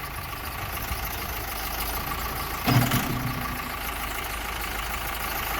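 Diesel engine idling steadily, with one brief louder low sound and knock about three seconds in.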